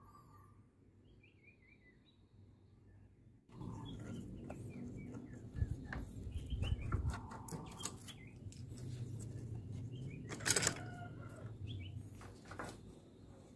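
Small birds chirping in short falling notes. About three and a half seconds in, a louder rustling, knocking noise starts, with one sharp knock near the end.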